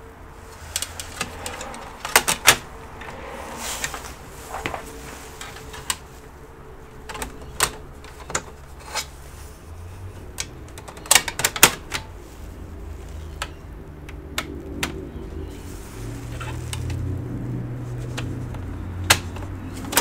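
Metal hard-drive caddy being handled and fitted into the sheet-metal chassis of an all-in-one PC: irregular clicks and knocks, with a few sharper clacks, over a low steady hum.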